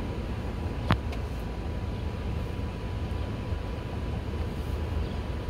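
Steady low outdoor rumble with a faint steady high tone running under it, and one sharp click about a second in. No rising-and-falling siren wail is heard.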